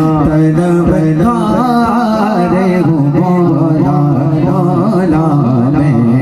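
Man singing a naat in a drawn-out, ornamented melody over a steady held drone.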